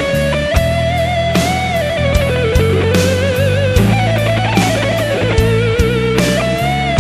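Background instrumental rock music: a sustained lead melody with vibrato over a steady drum beat and bass.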